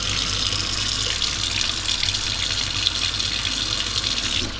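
Kitchen tap running a steady stream of water into a stainless steel sink. Near the end the stream is caught in a plastic measuring jug, and the splashing changes and softens.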